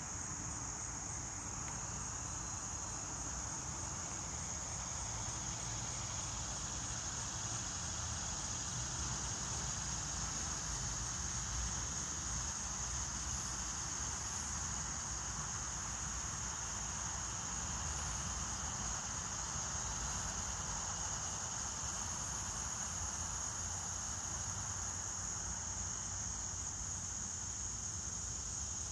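Steady outdoor insect chorus: a continuous high-pitched drone with no breaks, over a low background rumble.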